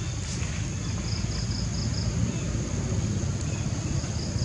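Insects droning steadily at a high pitch, with a pulsing chirp about four times a second, over a low rumble of wind on the microphone.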